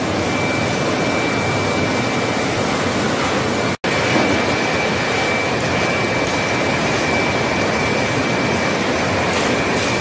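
A circular-saw sawmill line running: multi-rip saw machines and chain conveyors make a loud steady machinery noise with a thin steady high whine above it. The sound drops out for an instant about four seconds in.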